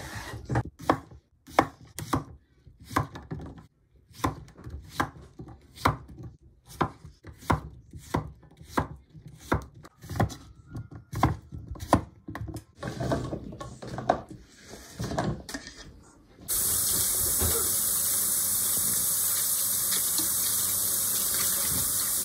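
Knife chopping on a cutting board: a run of sharp, irregular knocks, about one or two a second. About three-quarters of the way through, a loud steady hiss starts suddenly and the chopping stops.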